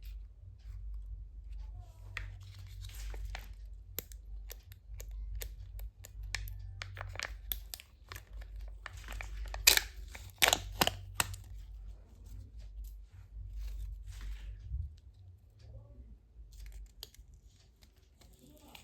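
Kinder Joy plastic packaging being torn open and crinkled by hand: a run of sharp crackles and tears, loudest in a cluster about ten seconds in.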